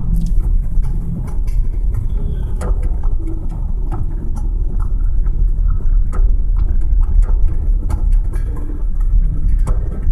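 Car driving, heard from inside the cabin: a steady low rumble of engine and road noise, with scattered small clicks and knocks.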